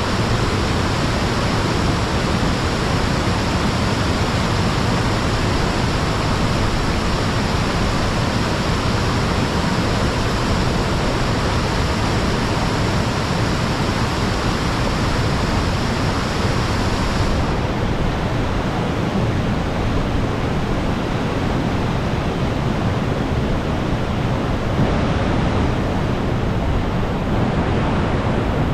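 Waterfall rushing: a loud, steady roar of falling water that goes duller and less hissy about two-thirds of the way through.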